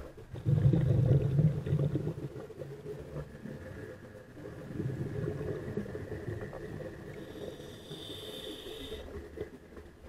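A scuba diver's exhaled breath bubbling out of the regulator underwater: a loud low bubbling rumble starts about half a second in and lasts a second and a half, with a weaker burst around five seconds in.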